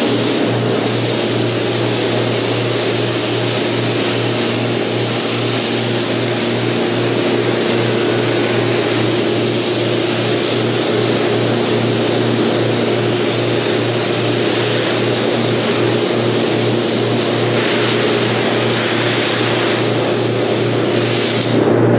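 Gravity-feed spray gun hissing steadily as it sprays paint onto plastic rocker panel covers, over a steady low mechanical hum. The spray hiss softens a few seconds before the end.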